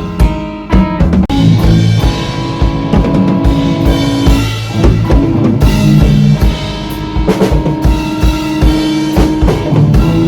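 Live rock band playing an instrumental passage: a drum kit with steady kick and snare hits under sustained guitar and bass chords.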